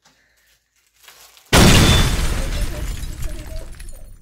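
A sudden loud crash about one and a half seconds in, heavy and booming, fading away over the next two seconds or so.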